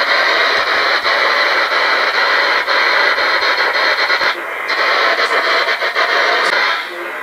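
Spirit box radio sweeping through stations: loud, steady hissing static broken by quick clicks as it jumps from channel to channel, dropping away near the end.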